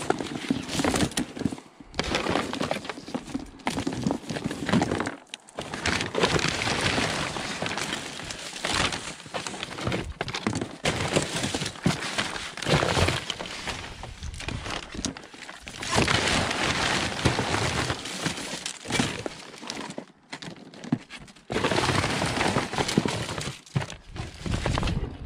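Rummaging by hand through a dumpster of discarded electrical and building scrap: a near-constant run of clattering knocks and scraping as pieces are shifted and pulled out, with a few brief pauses.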